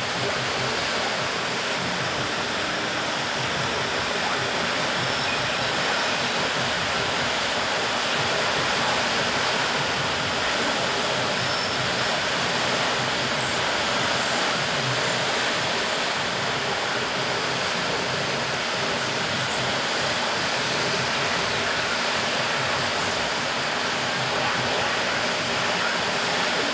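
A helicopter's engine and rotor noise, heard as a steady, even rushing sound with a faint low hum and no change in level.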